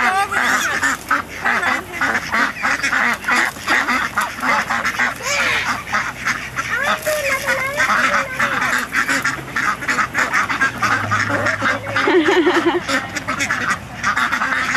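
A flock of domestic ducks quacking, many short calls overlapping in a rapid, continuous chorus.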